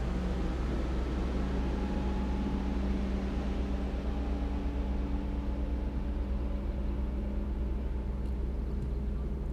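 Bass boat's electric trolling motor humming steadily over a constant low rumble.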